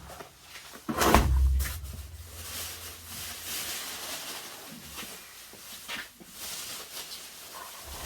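A heavy indirect water heater tank being flipped over on the floor: a loud low thump and rumble about a second in, then lighter knocks and shuffling as it is handled.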